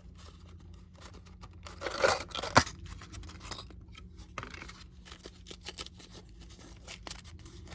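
Fishing tackle and packaging being handled while tying a rig: rustling and small clicks, with a louder rustle about two seconds in and a sharp click just after. A steady low hum runs underneath.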